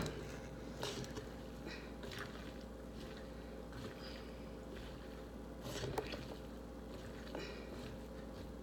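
Faint soft squishing and rustling of moist food ingredients being mixed in a pot, with a few light knocks, the clearest a little past the middle.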